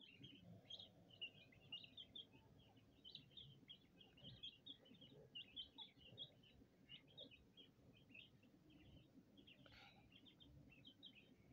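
Young chicks cheeping over one another in a rapid, continuous run of short, high chirps, faint against a low background hum.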